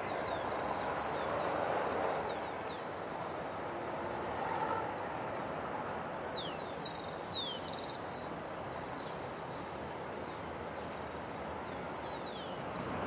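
Outdoor ambience: a steady background hiss with many short, falling bird chirps, thickest about halfway through.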